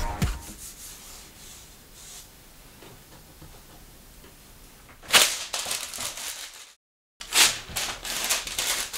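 Hands rubbing and pressing sheets of transfer gold leaf down onto a painted paper surface: dry paper rustling and rubbing in several strokes starting about five seconds in, broken by a brief cut to silence. Before that, the tail of background music fades out and it is faint.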